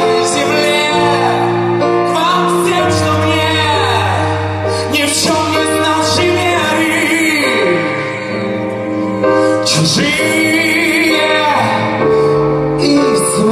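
Live band music with a male vocalist singing long, sliding notes over held chords and a steady bass line.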